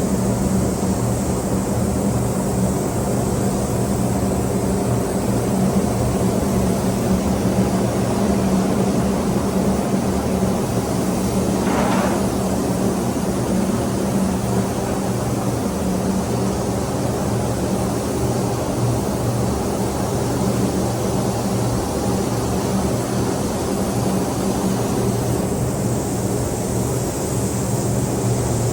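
Steady mechanical drone with a low hum, with a brief higher sound about twelve seconds in.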